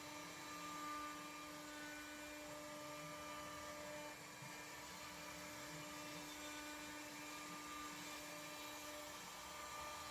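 Faint, steady motor hum with a higher whine over it, from the spindle of a Mechmate CNC router running.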